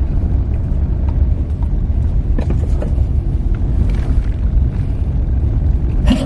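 Steady low drone of a moving car's engine and road noise heard from inside the cabin. A cough breaks in at the very end.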